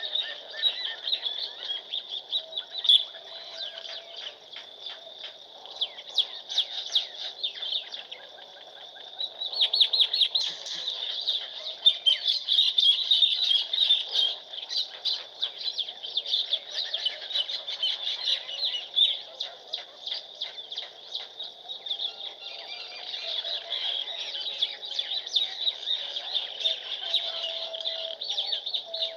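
A dense chorus of many small birds chirping at once, a constant run of short, rapid high calls that grows busier and louder about a third of the way in.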